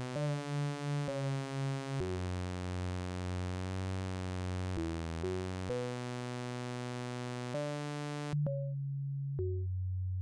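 Sinus Plus 2.0 virtual organ playing held chords that change every second or so, with a short click at each change. Near the end the sound thins to a plain low tone with the upper notes gone.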